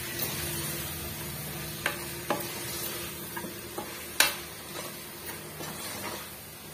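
A steel ladle stirring mutton pieces in thick masala in an aluminium pressure cooker, over a low sizzle of frying. The ladle knocks against the pot a few times, the sharpest knock about four seconds in.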